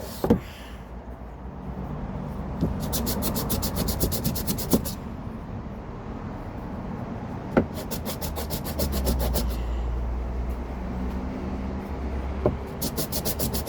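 A small wooden piece rubbed back and forth on sandpaper by hand. It goes as a steady scratchy rubbing, with three spells of quick, even strokes and a few light knocks of wood on the board.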